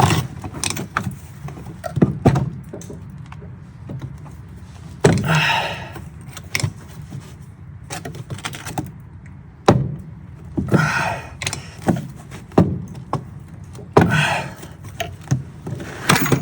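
Hand tools working on the seized, unlubricated steel bolts of a Porsche 356 pedal box: irregular metal clanks and knocks, with a few short scraping rattles about five, ten and fourteen seconds in.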